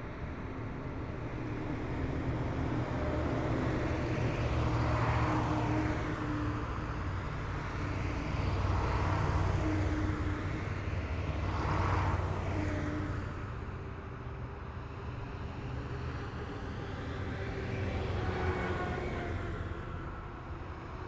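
Heavy military vehicles driving past one after another in a column: a low engine drone and road noise that swell and fade as each vehicle goes by, about four passes.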